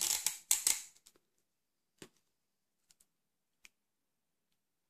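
Paper strips rustling and crinkling as hands slide and press them on a tabletop for about the first second, followed by three faint light ticks.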